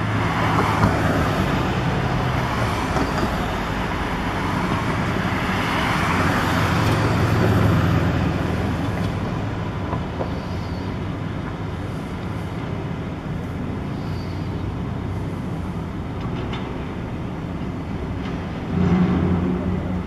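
City street traffic: a steady wash of passing vehicles that swells about six to eight seconds in, with a louder engine coming in near the end.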